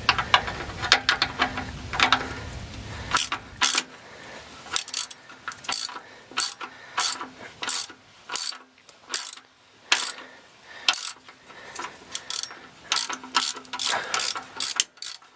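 Socket ratchet clicking in repeated short runs, backing a loosened oil drain plug out of the oil pan.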